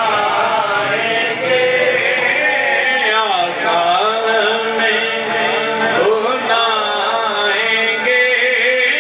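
A man reciting an Urdu naat into a microphone, chanting a slow melody with long held notes that bend and glide, broken by short pauses for breath.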